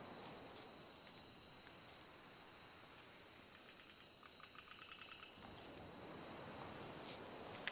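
Faint night ambience of chirping insects, a steady high-pitched chorus like crickets. About halfway through comes a short run of about ten quick ticks, and near the end a sharp click.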